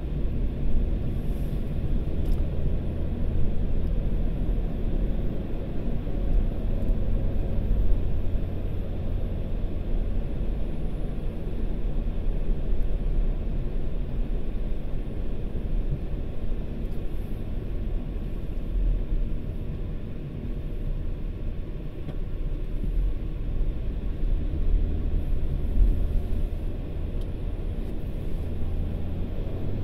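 A car driving at speed, heard from inside the cabin: a steady low rumble of engine and tyres on the road.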